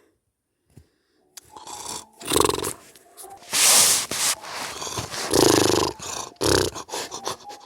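A person's voice making loud, exaggerated snoring sounds: after about a second of quiet, a series of rough, gravelly snores roughly a second apart.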